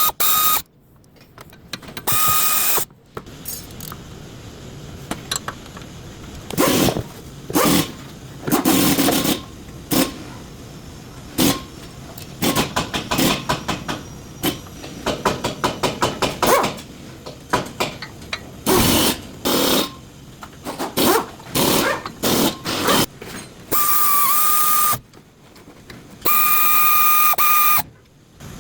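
Brake-job workshop sounds: many clanks and clicks of metal tools and parts, broken by several short bursts of a hissing air tool with a steady whine, each starting and stopping sharply.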